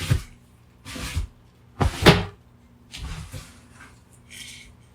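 A handful of separate knocks and clatters from objects being handled and put down, the loudest about two seconds in, with a higher-pitched rattle near the end.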